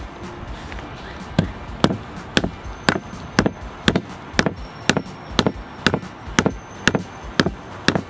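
Mallet blows on a block of soft pure sodium metal lying on plastic wrap over a wooden bench, about two strikes a second starting a little over a second in, hammering the metal flatter.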